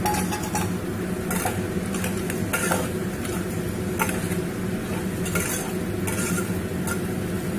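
A metal spatula stirring chunky vegetables and greens in a metal pot, scraping against the pot's side and bottom about once a second, over a steady light sizzle of frying.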